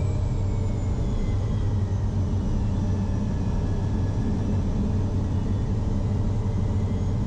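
Cessna Citation M2's twin Williams FJ44 turbofans at low taxi thrust, heard from inside the cockpit: a steady low hum with faint high turbine whines that slowly drift lower. The jet is heavy and taxiing on as little thrust as possible.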